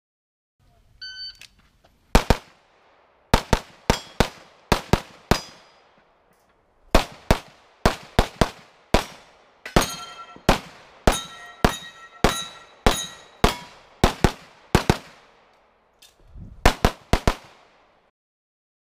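Open-division 9mm Major competition pistol (Blackdog Custom) fired rapidly in pairs and longer strings of shots, with steel targets ringing on some hits. A shot timer's beep about a second in starts the string.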